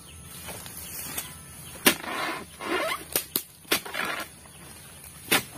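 A Bidor dodos, a long-handled palm harvesting chisel, chopping into the bases of oil palm fronds with about five sharp strikes, the first, about two seconds in, the loudest. A rasping rustle follows some of the strikes as the cut fronds tear and shift.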